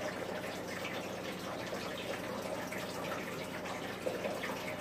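Steady hissing background noise with a faint low hum.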